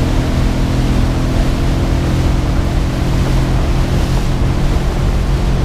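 Boat's outboard engine running steadily under way, with a constant rush of wind and water over the hull.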